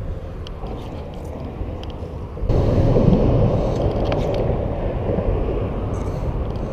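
Steady low rumble of road traffic on the highway overpasses overhead, with light clicks. About two and a half seconds in, a rush of low noise comes in suddenly and stays louder.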